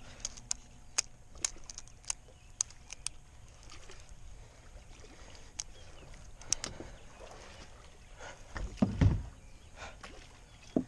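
Fishing reel clicking in short, irregular pulses, about two a second, during the first three seconds, as a big catfish pulls hard against the line. A heavy low thump comes about nine seconds in.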